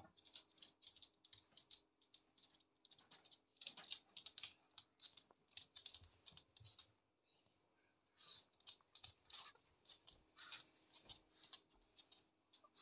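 Faint, rapid light clicks and taps: a Shih Tzu's claws on a hard laminate floor as it moves about, with a short lull about seven seconds in.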